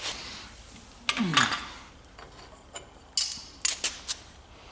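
Aluminum prop pieces clinking and knocking as they are picked up and handled on a workbench, a few separate metallic knocks about a second in and again after three seconds.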